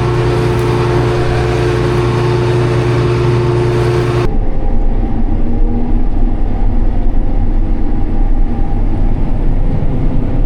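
Combine harvester running at work, a loud steady machine drone with a steady hum. About four seconds in it switches abruptly to a deeper, rumblier running sound.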